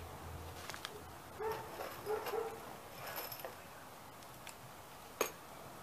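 A dog barking several times in the distance, short pitched barks bunched together in the middle, over quiet outdoor background. A single sharp click comes near the end.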